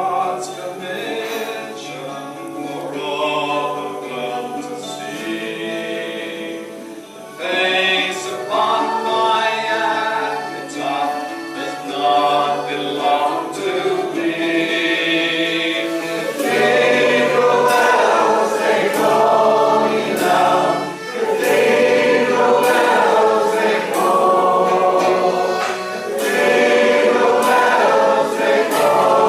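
Several voices singing a folk song together in harmony over a steady low held note. The singing gets louder about seven seconds in and again about halfway through.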